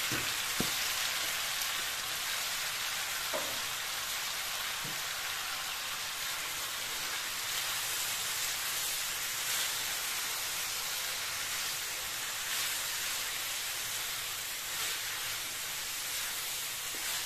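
Vegetables sizzling steadily in hot oil in a wok as they are stir-fried, with a few light knocks near the start.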